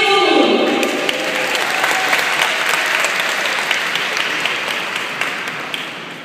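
Audience clapping and applauding after a marching band performance, right after the band's held final chord drops off with a falling slide in the first half-second. The applause slowly fades away toward the end.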